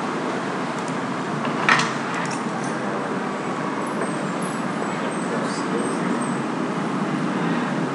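Steady hissing background noise, with a single sharp click a little under two seconds in.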